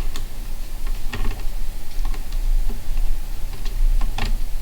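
Small screwdriver driving the tiny M.2 retaining screw into the motherboard standoff: scattered light clicks and taps of metal on metal, the strongest about a second in and near the end, over a steady low hum.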